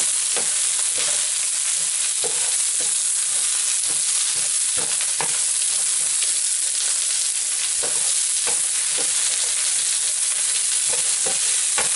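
Chopped garlic, ginger, green chilies and yellow capsicum sizzling steadily in hot olive oil in a non-stick frying pan, stirred with a wooden spoon that gives irregular light knocks and scrapes against the pan.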